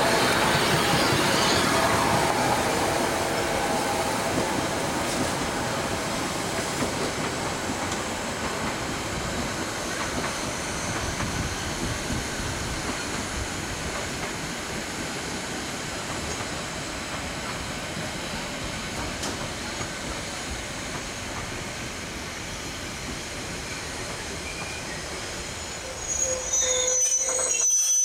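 Metre-gauge 2-10-2 tank steam locomotive 99 236 and its coaches rolling past on the rails, loudest at the start as the engine goes by, then the coaches' wheels running and clacking over the track as the train draws away. Near the end a louder high wheel squeal rises briefly.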